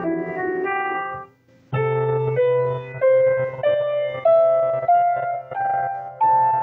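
Piano playing: chords, a short break about a second and a half in, then a held low bass note under a melody that climbs one note at a time, about a note every half second.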